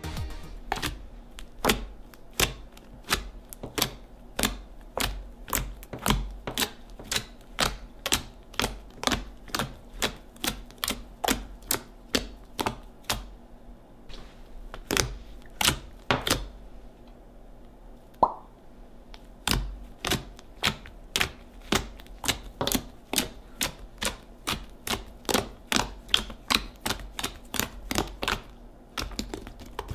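Fingers poking and pressing into fluffy soft serve slime, making a steady run of sharp popping clicks, two or three a second, with a short lull past the middle.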